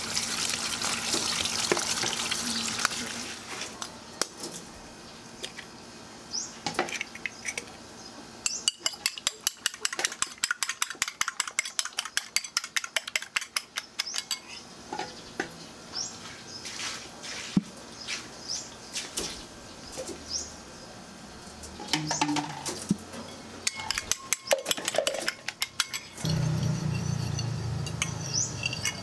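A metal fork beating eggs in a china bowl: fast runs of clinks as the tines strike the bowl, with short pauses between the runs.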